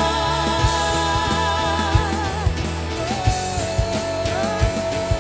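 Worship band playing a Tagalog praise song with drum kit. A held, wavering sung note ends about halfway through, then an instrumental line carries the melody.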